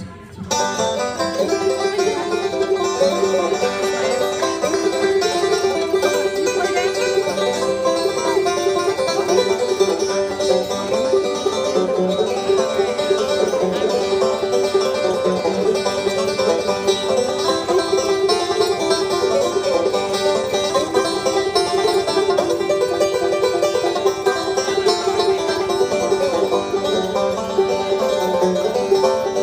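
Two five-string banjos playing a bluegrass tune in harmony, dense rolls of quickly picked notes. The music starts about half a second in.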